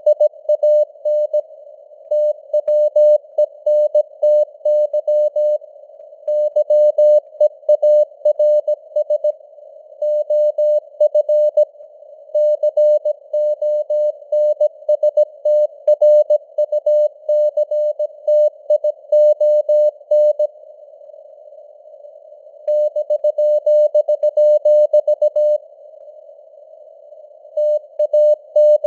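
Morse code (CW) sent at 17 words per minute: a single steady tone keyed on and off in rapid dots and dashes over a narrow band of simulated radio-receiver hiss. There are two longer pauses between words in the later part.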